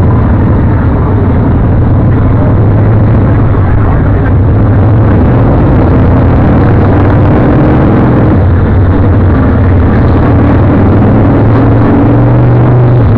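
Loud, steady motorcycle engine running at low parade speed, its pitch shifting slightly now and then with the throttle.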